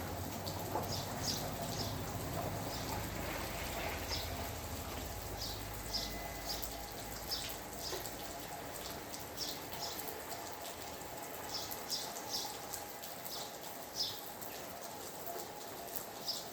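Steady rainfall with birds chirping, short high chirps repeating every second or so. A low rumble sits underneath for roughly the first half, then fades out.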